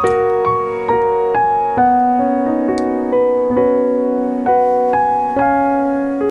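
Background piano music: struck notes and chords that fade after each strike, with a new one coming about every half second to a second.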